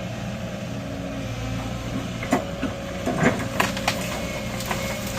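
Excavator engine running steadily, with several sharp knocks and clunks in the second half.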